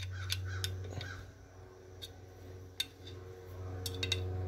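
A few light metallic clicks and ticks as a steel linkage rod is worked back and forth in the hole of a Case Ingersoll tractor's travel control lever, a tight fit with little play. A steady low hum sounds underneath.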